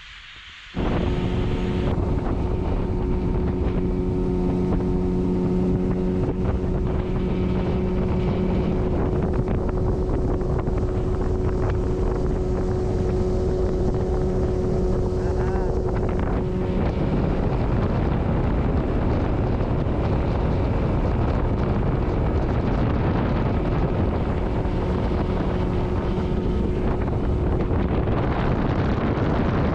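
A boat's outboard motor running steadily under way, with a steady engine tone under a dense rush of wind on the microphone. It starts abruptly about a second in.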